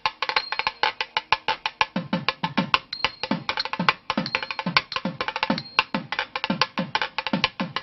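Fast drum-led percussion music: a rapid run of sharp, dry strikes, joined about two seconds in by repeated deep drum strokes that drop in pitch.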